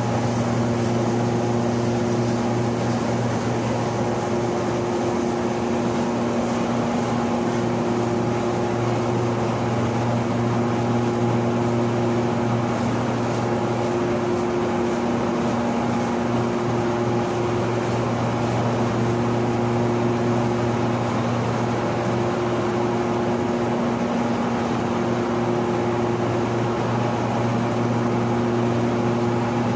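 Corn milling machine running steadily, a loud, even drone with a low hum that does not change.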